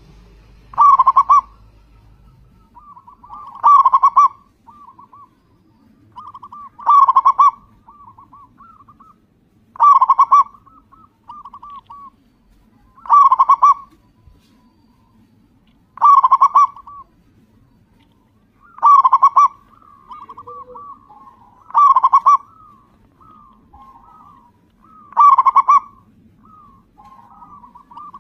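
Local Indonesian zebra dove (perkutut) in full cooing song. A loud coo comes about every three seconds, with softer rippling coos trailing between them.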